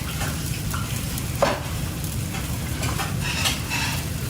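Food frying and sizzling in a pan, with a sharp knock of a utensil about a second and a half in and a few lighter clicks.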